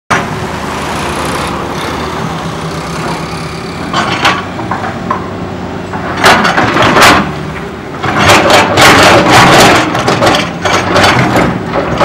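Hitachi hydraulic excavator's diesel engine running steadily, with loud crunching and scraping bursts as the bucket works through rubble and debris, heaviest in the second half.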